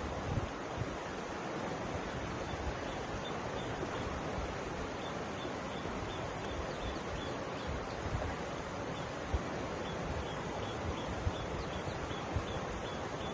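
Mountain river flowing: a steady rush of water, with low gusts of wind on the microphone. A faint high-pitched ticking repeats about three times a second through much of it.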